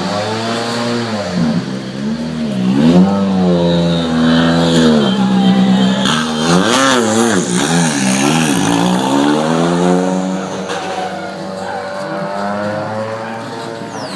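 Rally car engine revved up and down over and over in quick throttle blips, its pitch rising and falling repeatedly.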